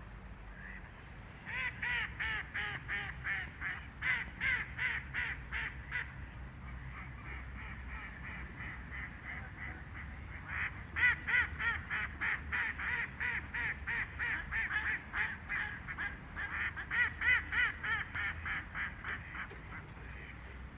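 Ducks quacking in fast runs of short, loud calls, in two bouts: one early, and a longer one starting about halfway through.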